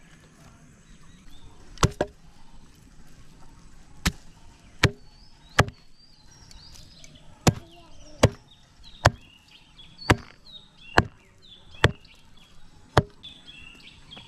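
A heavy blade chopping into a pig's head, about a dozen hard single strikes roughly a second apart, starting about two seconds in.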